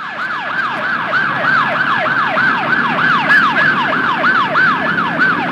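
Emergency vehicle siren sounding in quick, repeated falling sweeps, about three a second.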